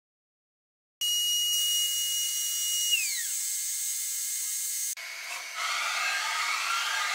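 After a second of silence, a high-speed CNC engraving spindle whines at a steady high pitch over a hiss and glides down in pitch about two seconds later. Near the end a rougher, grainier machining noise takes over.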